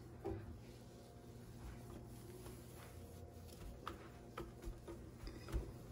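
Faint, scattered light clicks and taps of hand handling over a steady low hum.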